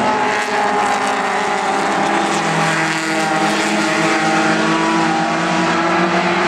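Several race car engines running together at racing speed, a steady loud blend of engine notes whose pitches slowly rise and fall as the pack goes through the turn.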